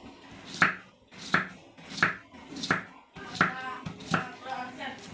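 Knife chopping vegetables on a cutting board, with sharp chops in a steady rhythm of about three every two seconds.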